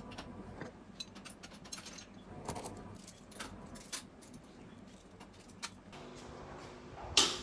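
Scattered light metallic clicks and clinks of hand tools (clamps, pliers) being handled against a steel welding cart, with one louder brief scrape near the end.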